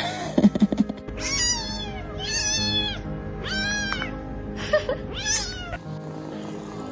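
A cat meowing repeatedly, about five meows, each rising and then falling in pitch, over background music. A short burst of sharp clattering noises comes in the first second.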